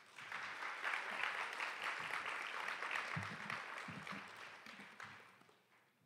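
Audience applauding, swelling quickly and then dying away over the last couple of seconds, with a few low thumps about three and four seconds in.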